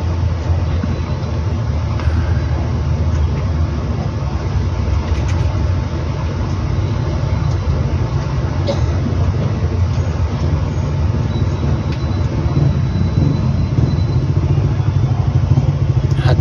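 Steady low background rumble with a hiss above it, even and unbroken throughout.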